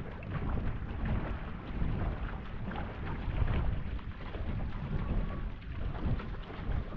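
Wind buffeting the microphone over water rushing and splashing along a C2 marathon canoe's hull as two paddlers take steady strokes.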